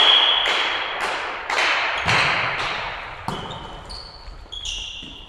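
A referee's whistle blows briefly at the start, then a volleyball thumps several times about half a second apart, each hit ringing in the large hall. Near the end come short high squeaks of shoes on the wooden court floor.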